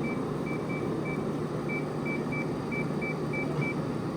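About a dozen short high beeps at one pitch, irregularly spaced, from the 2009 GE AEW05LMS2 window air conditioner's control acknowledging button presses as its delay timer is stepped through. Under them the unit runs steadily in cooling mode, its fan and compressor humming.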